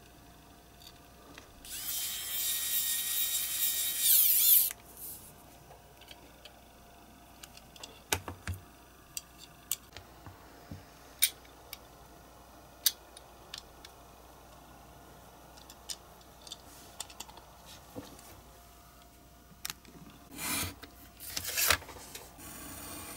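Small pen-style electric precision screwdriver whining for about three seconds against a diecast model's metal base, loudest just before it stops. Then scattered light clicks of small metal parts being handled, and near the end a couple of short scrapes of a craft knife along a steel ruler.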